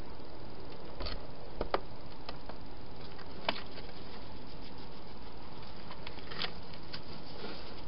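Wild hedgehogs moving about and feeding at a plastic feeding box: scattered small clicks and crackles of claws and crunching food over a steady hiss.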